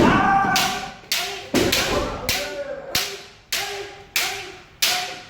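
Kendo drill: bamboo shinai strikes landing in a steady series, about nine sharp cracks roughly every half second to second, each followed by a short shouted kiai.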